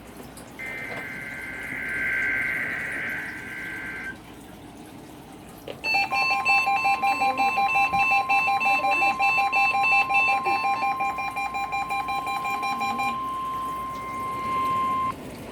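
NOAA Weather Radio test broadcast: a SAME digital header burst, a warbling screech of two alternating high tones, runs until about four seconds in. About six seconds in, the steady warning alarm tone starts together with a rapidly pulsing, buzzy alarm beeping; the beeping stops about thirteen seconds in, and the steady tone a couple of seconds later.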